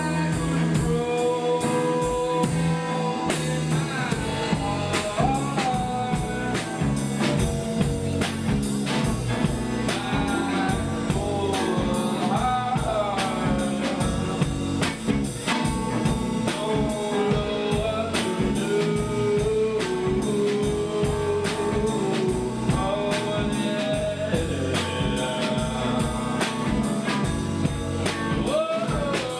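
A rock band playing a song: a drum kit keeps a steady beat under guitar, with a singing voice carrying a wavering melody.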